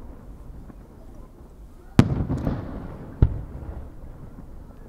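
Aerial firework shells bursting: a sharp bang about two seconds in with a long rumbling echo, then a second sharp bang just over a second later.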